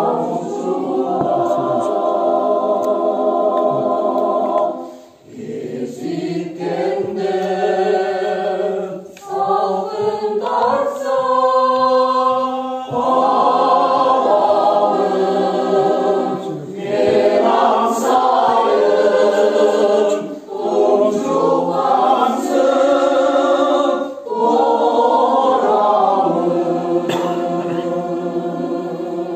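Mixed choir of women's and men's voices singing in several-part harmony, in held phrases with short pauses between them.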